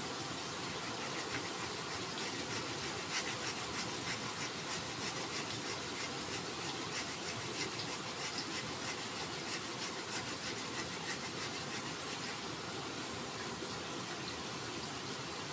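Hand sanding of a forest red gum didgeridoo: sandpaper rubbing along the wood in a scratchy hiss of quick strokes, about two a second, easing off near the end.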